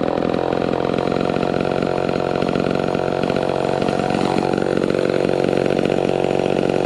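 Vintage Homelite XL12 two-stroke chainsaw running at a steady speed with an even, unchanging engine note.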